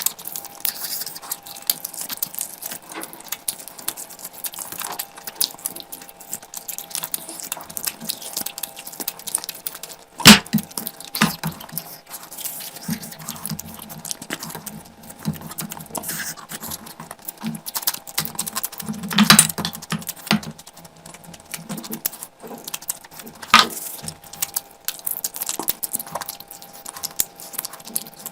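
Close-miked eating sounds: chewing, lip smacks and wet mouth clicks as someone eats curry and rice, a dense run of small crackles with a few louder sharp snaps.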